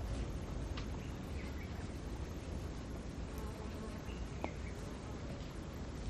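Steady low outdoor background rumble with a few faint, short high chirps and one sharp tick about four and a half seconds in.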